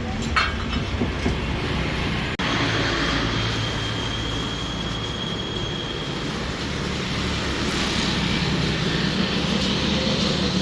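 Steady low mechanical hum with a brief dropout a little over two seconds in, and a faint high whine for a few seconds after it.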